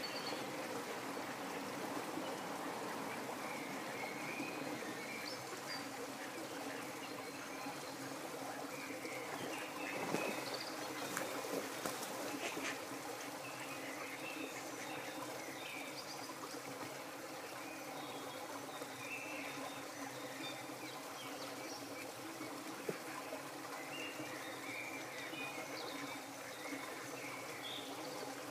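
Steady trickling of water at a pond, with faint high chirps scattered throughout and a few sharp clicks about ten to twelve seconds in.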